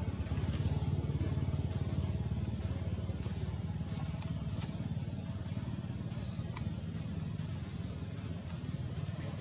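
Steady low rumble, with a short high chirp repeating about every one and a half seconds.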